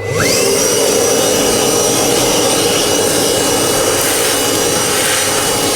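Wet-and-dry vacuum cleaner switched on: its motor whines up to speed within a fraction of a second, then runs loud and steady while sucking up leaked water.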